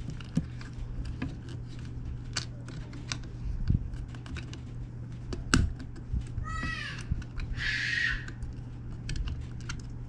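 Irregular small clicks and taps of a plastic game controller's parts being handled during disassembly, over a steady low hum. About six and a half seconds in, a short high cry and a brief noisy shout sound in the background.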